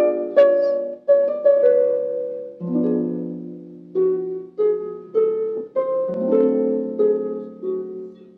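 Instrumental interlude with no singing: a plucked string instrument, harp-like, plays a slow melody over chords. Each note starts sharply and dies away.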